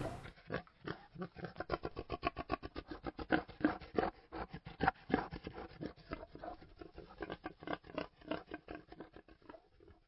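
Boar grunting in a rapid, rhythmic run of short grunts, several a second, fading out near the end: the arousal grunting of a boar mounted and stimulated for semen collection.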